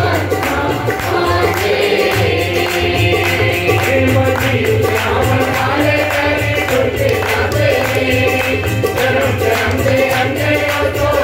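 Punjabi Christian devotional song performed live: a man's singing voice with harmonium accompaniment and tabla drumming, over rhythmic hand-clapping.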